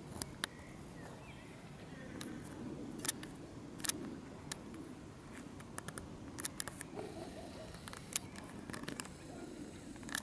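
Faint outdoor ambience with a low steady rumble, broken by scattered sharp clicks from the camera being handled as it pans.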